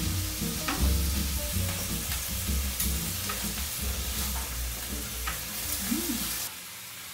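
Beef sizzling on a tabletop grill pan, with a steady hiss, scattered light clicks of utensils and soft background music. About six and a half seconds in, the sound drops to a quieter hiss.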